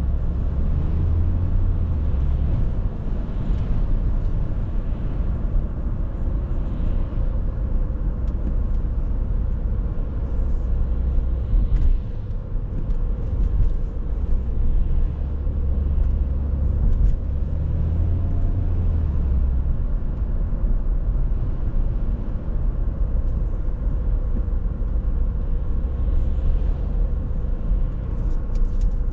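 Cabin sound of an Audi A6 C6's 2.4-litre petrol V6 under way: a steady low engine drone mixed with tyre and road rumble, the engine note shifting a few times.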